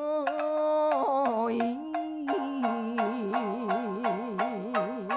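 Rōkyoku singing: one long sung note, steady at first, then swinging into a wide, slow vibrato about halfway through. Under it a shamisen plucks steadily, about three plucks a second.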